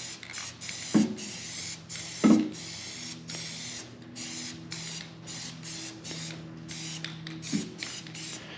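Aerosol spray-paint can hissing in a run of short bursts with brief breaks between them, paint going onto a freshly caulked metal mower deck.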